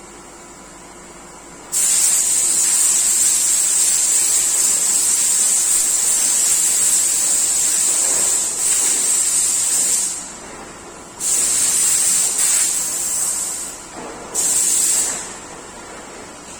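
Compressed air hissing loudly in three bursts: a long blast of about eight seconds, then one of about two seconds, then a short one near the end, over the steady hum of the workshop machinery.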